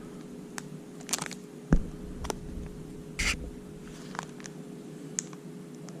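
Handling noise from a cardboard trading-card box and packs: a few soft rustles and light taps, with one dull thump a little under two seconds in, over a faint steady hum.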